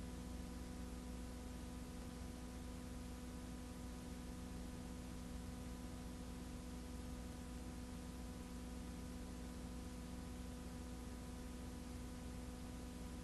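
Faint steady hiss and hum with no other sound.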